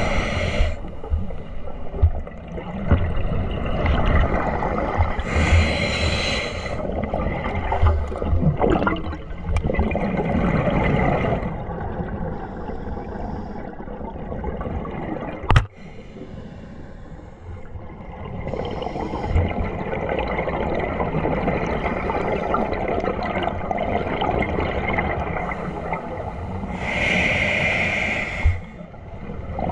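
Scuba diver's regulator breathing heard underwater through a waterproof camera housing: bubbling and gurgling water noise, with louder bursts of exhaled bubbles about six seconds in and near the end. A single sharp click about halfway through.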